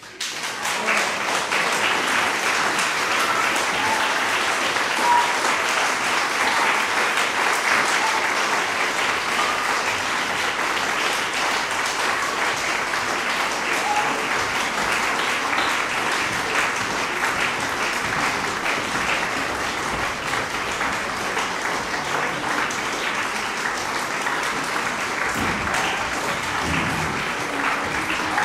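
Concert-hall audience applauding: the applause breaks out suddenly just after the music has died away and continues at a steady level.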